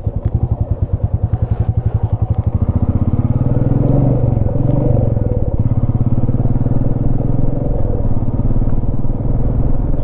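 Motorcycle engine idling with an even pulse, then revving up about three seconds in as the bike pulls away, and running steadily under way.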